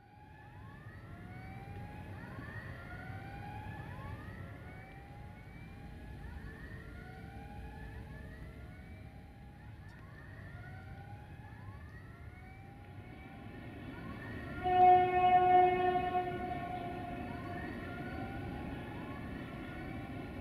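BR232 'Ludmilla' diesel locomotive sounding its horn, a loud steady two-tone blast about two seconds long, near the three-quarter mark. Before it, a low rumble runs under a string of short, overlapping rising squeals.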